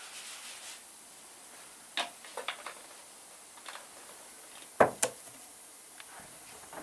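A few light knocks and clicks of objects being handled, scattered over several seconds, with the loudest pair of knocks close together about five seconds in.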